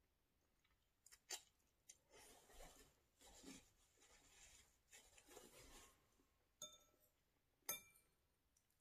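Close-miked eating sounds: soft chewing in stretches, with a few light clicks and two short ringing clinks of a utensil against a bowl near the end.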